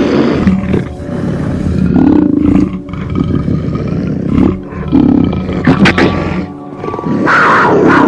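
Big cat roaring several times over background music, the loudest roar near the end.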